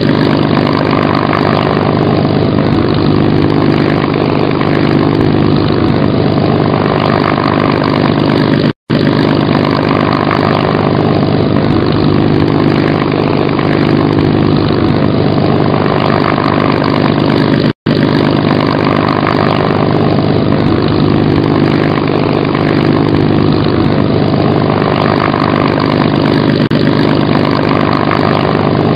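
Propeller-plane piston engine running steadily, with a slow rise and fall in its drone. It is a looped clip that cuts out for an instant twice, once about nine seconds in and once about eighteen seconds in, as it repeats.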